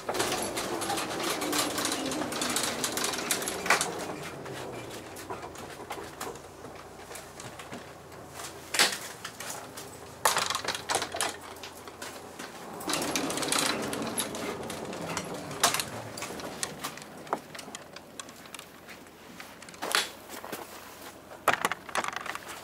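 Knocks and clatter inside a vehicle's cabin, with a tonal whine that falls slowly in pitch over a few seconds, twice: once at the start and again about halfway through.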